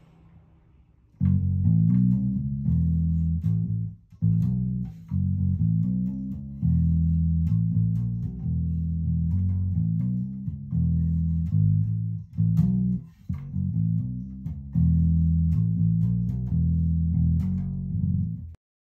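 Electric bass guitar played through a freshly repaired 1970s Peavey "The Bass" amplifier as a play test: a run of plucked low notes and riffs, starting about a second in and cutting off abruptly near the end.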